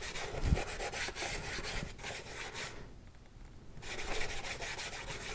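Flat paintbrush scrubbing acrylic paint around on a plastic palette, mixing raw umber into white: rapid scratchy strokes, stopping for about a second midway and then going on.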